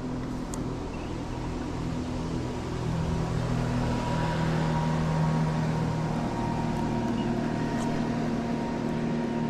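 An engine running steadily with a low, even hum that grows a little louder about three seconds in.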